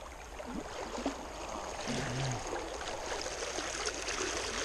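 Steady rush of flowing water from Pine Creek, running high.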